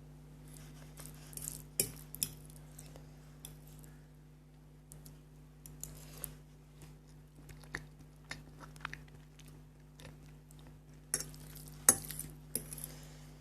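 Noodle eating close to the microphone: a fork or spoon clinking and scraping against the dish, with chewing between. The sharpest clinks come about two seconds in and again near the end, over a steady low hum.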